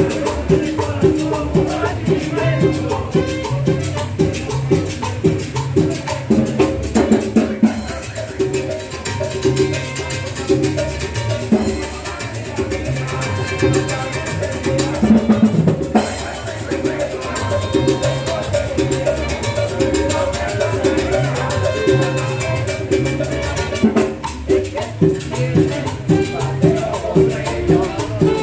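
Upbeat dance music with a steady, quick percussion beat.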